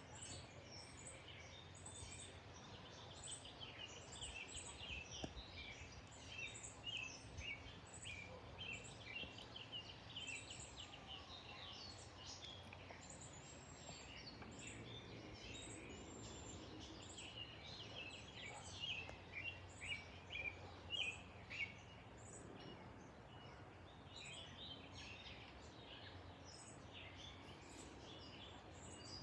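Many small birds chirping faintly, a dense run of short high calls, a few louder ones about two-thirds of the way through, over a faint low steady rumble.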